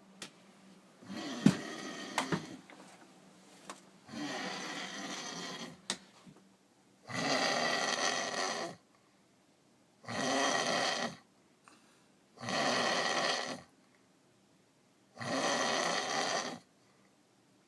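A drunk man snoring: six snores, each lasting one to two seconds, about every two and a half to three seconds, with quiet gaps between. A few sharp clicks come during the first snore, and the later snores are louder than the first ones.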